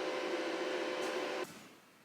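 Electric angle grinder running with a steady whine, then cut off abruptly about one and a half seconds in.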